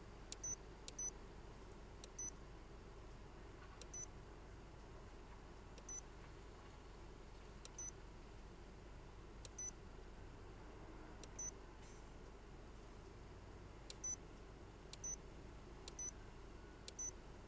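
Bowmonk BrakeCheck Series 2 decelerometer beeping as its buttons are pressed: about a dozen short, high-pitched electronic beeps, one per press, at irregular intervals.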